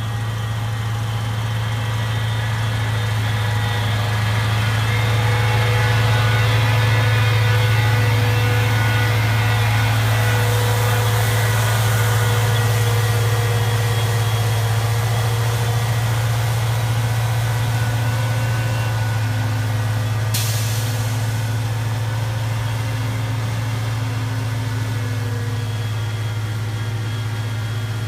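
Truck engine running steadily with a deep, even hum, swelling a little about a quarter of the way in, with a short hiss about two-thirds of the way through.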